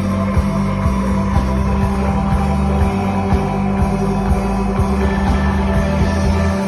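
Live blues-rock band playing loud through a PA: electric guitar over bass and drums, with a drum beat about twice a second.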